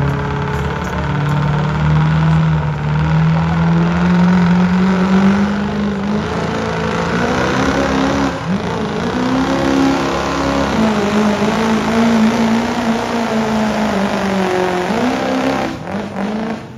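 Diesel pickup engine under full load pulling a weight-transfer sled. Its pitch climbs steadily over the first several seconds, then holds with slight wavers, and it drops off sharply near the end as the pull stops.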